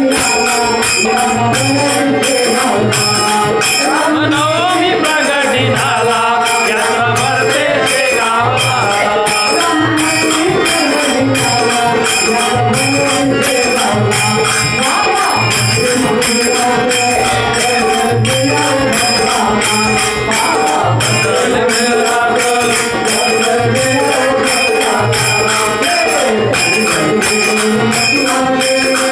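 Marathi bhajan: a man singing a devotional melody, accompanied by steady dholki drum beats and jingling percussion keeping a fast, even rhythm.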